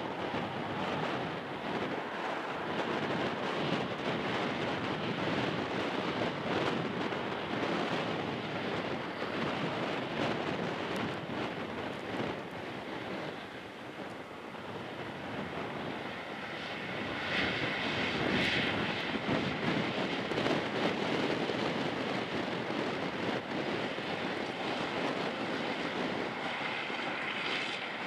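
Case IH 500 Quadtrac tractor's engine running steadily under load as it pulls a 47 ft anhydrous ammonia applicator. It grows louder for a few seconds past the middle, with added high-pitched whine and rattle.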